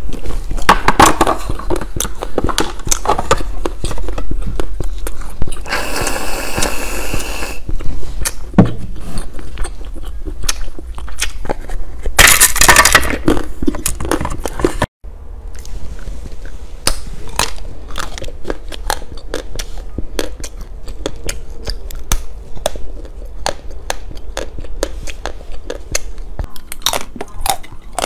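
Close-miked crunching, snapping and chewing of hard corn-cob-shaped candy, with many sharp crunches and two longer crackling stretches.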